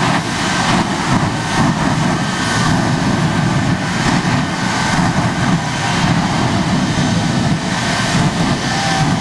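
Shockwave jet truck's jet engines running full on afterburner: a loud, steady jet blast with a faint high whine over it.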